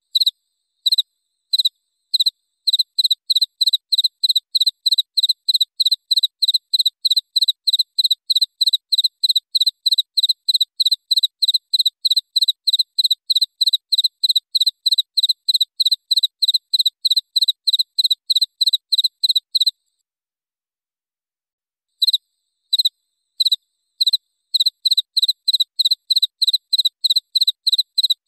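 Cricket chirping: a high, clear chirp repeated about three times a second. It starts with a few spaced chirps before settling into a steady run, stops for about two seconds some 20 seconds in, then picks up again.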